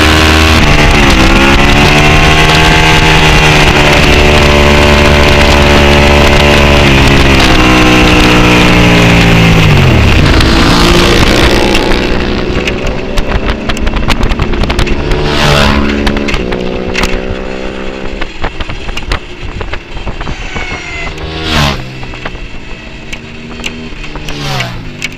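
Racing motorcycle engine held at high revs with heavy wind noise, its pitch falling through downshifts about ten seconds in. The engine then drops away and the wind dies as the bike slows, and other race bikes go by three times, each a quick rise and fall of engine note.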